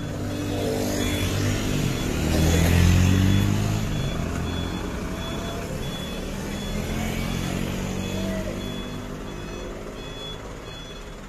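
Truck engine revving up and easing off as the truck is manoeuvred into a parking spot, loudest about two to three seconds in. A reversing alarm beeps in short, evenly spaced beeps the whole time.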